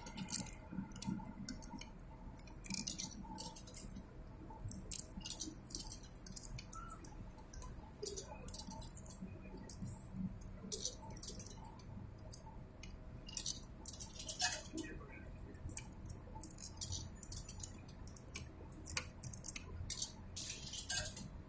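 Coins fed one after another into a Compass Card ticket machine's coin slot, each dropping in with a small metallic click or clink, at an irregular pace many times over.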